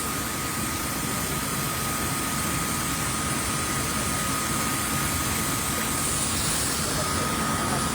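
Steady engine-like noise with a thin, high, steady tone running through it.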